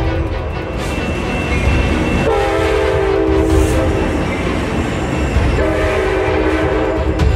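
Diesel locomotive air horn sounding two long blasts of several tones at once, each about a second and a half, after the tail of an earlier blast at the start, over the steady low rumble of a moving train.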